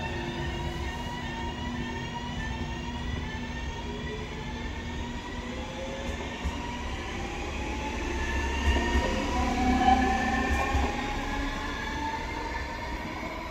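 NSB Class 72 electric multiple unit accelerating out of the station. Its electric drive gives a whine that keeps rising in pitch, over the rumble of wheels on the rails. It is loudest around nine to ten seconds in.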